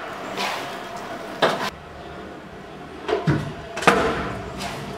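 Stunt scooter rolling on a concrete floor, with a steady low rumble from the wheels and about five sharp clacks and knocks as the scooter hits the ground.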